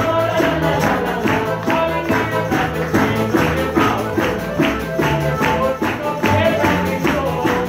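Live acoustic band playing: accordion, double bass and violin over a tambourine keeping a quick, steady beat.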